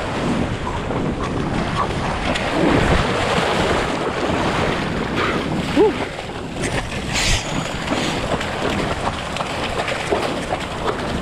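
Ocean surf rushing and foaming around a man wading chest-deep into the waves, with water splashing close to the microphone and wind on it. One brief sharp sound, the loudest moment, comes about six seconds in.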